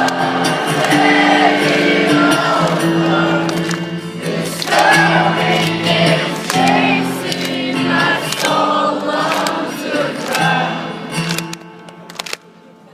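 A rock song played live, with choir-like singing over long held notes. The music drops much quieter near the end.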